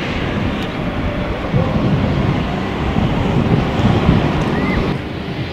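Steam locomotive 7029 Clun Castle, a four-cylinder GWR Castle class 4-6-0, pulling away with its train under heavy exhaust, working hard.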